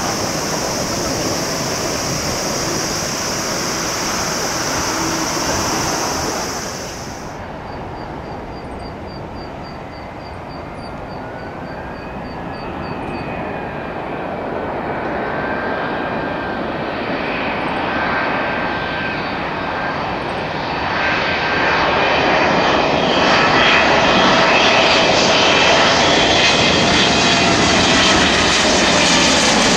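Boeing 777 jet engines: first a steady broad roar as a Lufthansa Cargo 777 freighter lands, then, after an abrupt change about a quarter of the way in, the engines of an Austrian Airlines 777 on final approach with gear down, a whine that grows steadily louder and clearer as it comes close, loudest in the last third.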